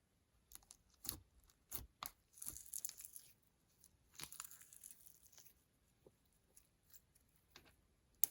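Slime being handled and pulled apart: a few sticky clicks, then two crackling tearing sounds, the first about two and a half seconds in and the second about four seconds in, followed by faint ticks and one sharp click at the end.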